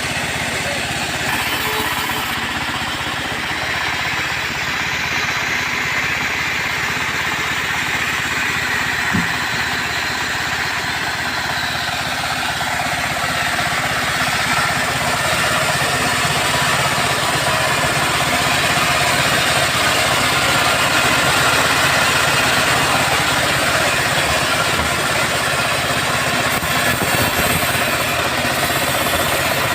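Engine-driven band-saw sawmill running steadily as it cuts through teak, a continuous engine drone under the hiss of the blade. It gets a little louder about halfway through.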